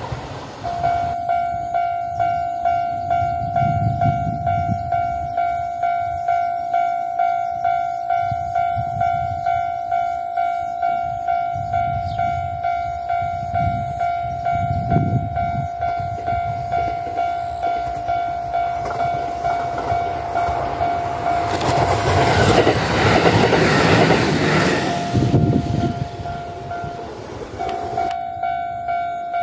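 Railway level-crossing bell ringing in an even, repeated ding, with a Kintetsu electric train running by; the train's noise swells to the loudest point for a few seconds about three quarters of the way through.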